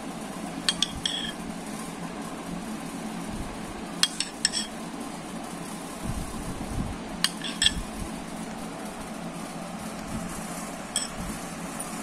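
A spoon clinking against a bowl and plate as thick rabri is spooned out: short clusters of two or three light clinks about every three seconds, over a steady low hum.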